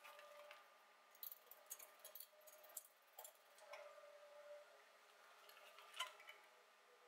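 Near silence: faint room tone with scattered light clicks and taps of tools and small metal parts being handled at a workbench, a cluster of them a second or two in and one sharper click near the end.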